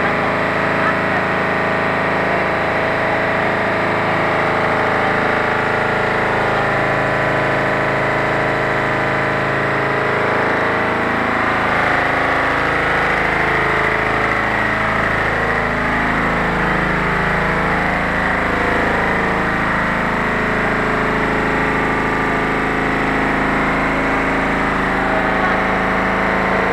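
Twin tricot warp-knitting machine running steadily, an even mechanical din with several constant tones.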